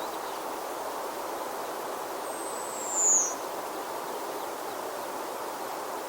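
Outdoor mountain ambience: a steady rushing hiss. About three seconds in, a bird gives one high, thin call that slides downward in pitch.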